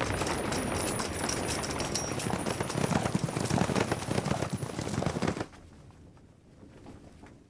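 Battle sound effects of a charging army: a dense clatter of hooves, running feet and rattling armour and weapons. It cuts off suddenly about five and a half seconds in, leaving only a faint background.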